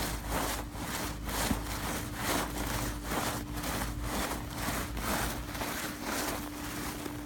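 Crunchy ice-crusted snow scraped in a steady back-and-forth rhythm, about two sweeps a second, as arms and legs sweep out a snow angel.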